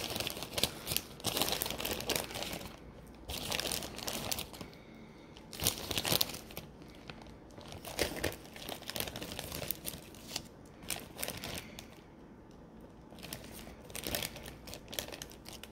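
Plastic bag of Sour Patch Kids crinkling in bursts as it is handled and opened.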